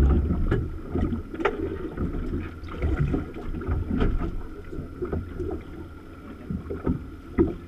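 Wind buffeting the microphone on a small fishing boat at sea, with the low rumble of the water and hull, a faint steady hum, and a few scattered knocks.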